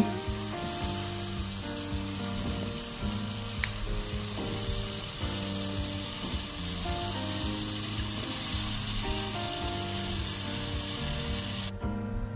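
Spiced onion-tomato masala sizzling in a pot as potato cubes are added and stirred in, with soft background music. The sizzling cuts off abruptly near the end, leaving the music.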